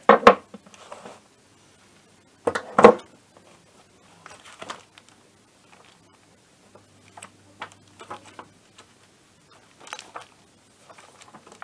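Workbench handling noises: two louder short clatters in the first three seconds, then lighter rustling and taps as the paper pages of a repair manual are handled and turned.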